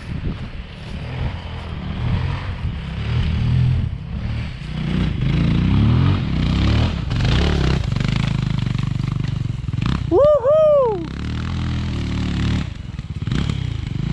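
Off-road motorcycle engines revving up and down on a dirt trail as the bikes accelerate and ease off. About ten seconds in there is a loud, high whoop that rises and falls twice.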